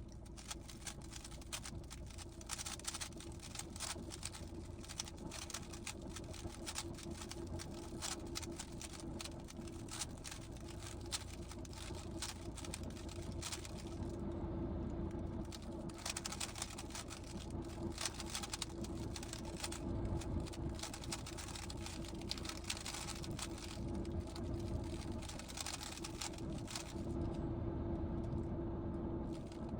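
GAN 15 speed cube being turned by hand, a rapid irregular run of light plastic clicks and clatter from the layers, over a steady low hum.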